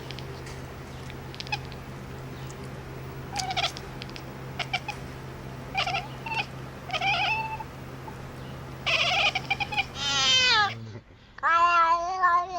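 A cat calling: several short, high meows, then two long wavering yowls near the end, the first falling in pitch. A steady low hum runs underneath.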